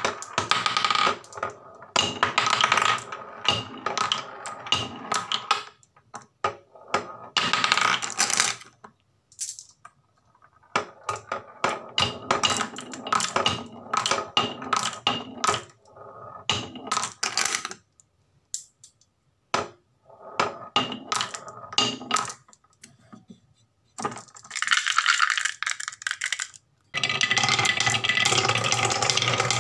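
Marbles rolling down a wooden marble run and clattering into a wooden catch tray, in bursts of clicks and rattling with short quiet gaps between runs. Near the end several marbles circle a wooden funnel bowl in a continuous rolling clatter.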